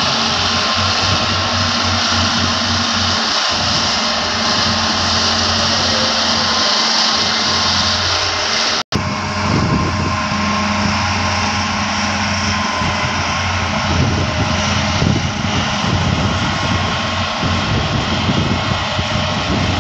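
Diesel engines of Hitachi hydraulic excavators running steadily under load while digging, a constant low engine hum with a broad mechanical noise over it. The sound cuts out for an instant about nine seconds in.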